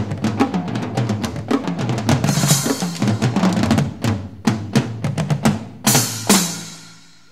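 Two percussionists playing drums and cymbals: a dense run of strokes on bass drum, toms, snare and cymbals that thins after about four seconds into a few separate heavy hits. The last and loudest crash-and-drum stroke, about six seconds in, rings out and dies away, ending the piece.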